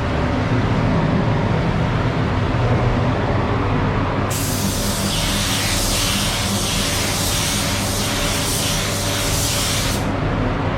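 Compressed-air paint spray gun hissing as it atomizes paint onto a car panel, the trigger pulled about four seconds in and released near the end, over the steady drone of the spray booth's extraction fans.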